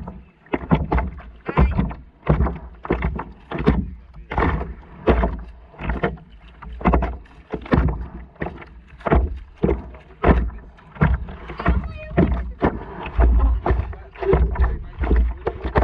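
Small waves slapping and sloshing against a stand-up paddleboard's hull right at the camera, in quick uneven splashes about twice a second over a low rumble.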